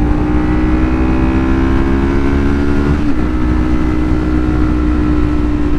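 Kawasaki Ninja 400 parallel-twin engine running while the bike is ridden at a steady road speed. The engine note sags slightly, then holds steady after a short break about three seconds in, over a low rush of wind on the microphone.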